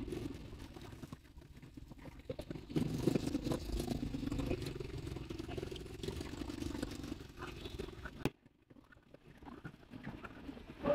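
Street traffic of passing motor scooters, a steady engine hum with road noise. It drops away abruptly about eight seconds in, leaving only faint traffic.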